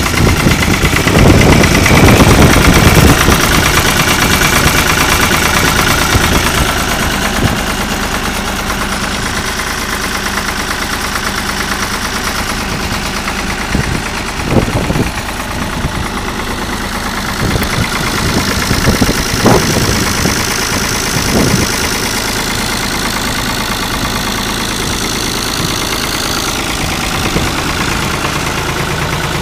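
1974 Long 350 tractor's direct-injected diesel engine idling steadily, louder for the first few seconds and with a few brief louder bursts later on, early in its warm-up after a cold start.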